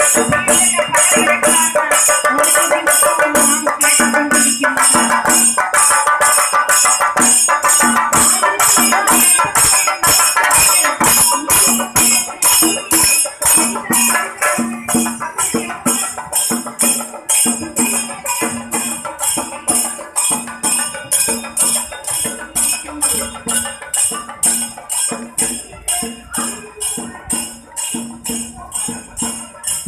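Chenda drums beaten in a fast, steady rhythm with a bright metallic jingle over them, growing fainter in the second half.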